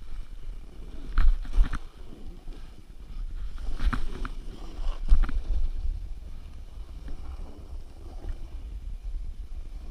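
Snowboard sliding through deep powder, heard on an action camera's microphone: a steady low wind rumble and hiss of snow under the board, with several sharp knocks, the loudest about a second in and again around four and five seconds in.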